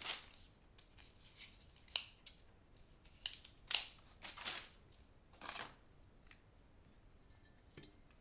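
Tulip stems and paper wrapping being handled: a string of short, crisp rustles and light clicks, the loudest a few seconds in.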